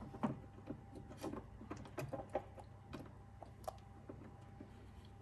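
Irregular light clicks and knocks as aftermarket pad parts are handled and fitted onto an electric unicycle's shell, about a knock every half second to second.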